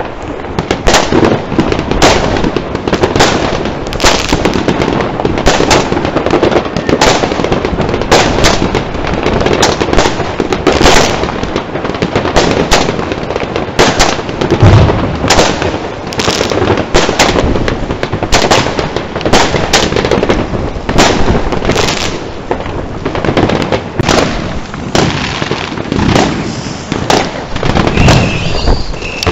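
Fireworks going off in a continuous barrage of sharp bangs and crackles, several a second, with a few heavier thumps, one about halfway through and one near the end.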